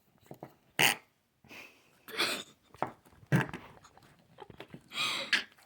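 Noise putty being squished and pressed in its tub, giving a series of short squelching, fart-like noises, about six in all, the longest near the end.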